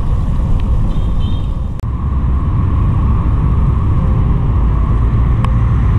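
Steady low wind rumble on the camera's microphone from riding a bicycle along a city road, mixed with road traffic noise.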